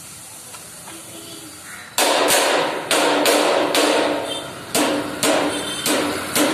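Wooden-handled hammer striking a freshly stick-welded seam on a sheet-steel door frame, knocking the slag off the weld. About eight sharp blows, roughly two a second, start about two seconds in, and the steel rings between them.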